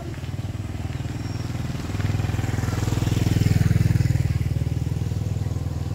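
Motorbike engine running with a steady, even beat, growing louder about two seconds in and easing off again near the end.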